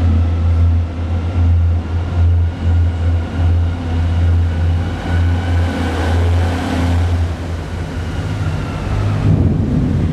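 Heavy machinery running in an underground oil shale mine: a loud, steady low drone with an uneven, pulsing level and faint high whining tones above it.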